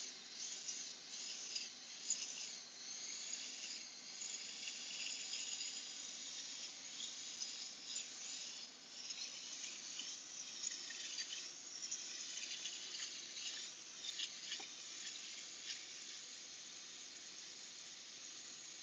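Bottle-fed airbrush spraying paint: a soft, wavering hiss of compressed air that swells and eases as the trigger is worked.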